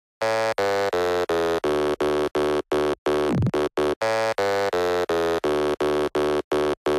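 Electronic intro music: a buzzy synthesizer tone chopped into short stabs about three times a second, with a falling pitch sweep about three and a half seconds in.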